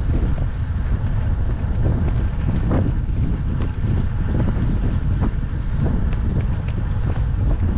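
Wind buffeting the microphone of a camera riding along on a moving bicycle, a steady low rumble, with scattered light ticks and rattles through it.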